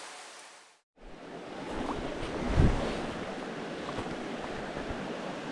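Small mountain stream running steadily over rocks after a brief fade to silence in the first second, with one low bump about two and a half seconds in.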